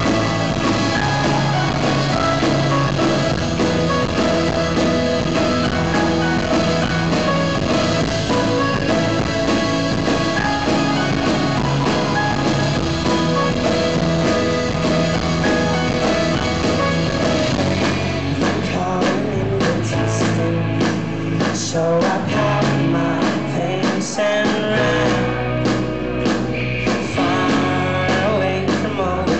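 Live indie folk-rock band playing, with guitars, drums and singing; from about 18 seconds in the sound turns more percussive, with sharp rhythmic hits.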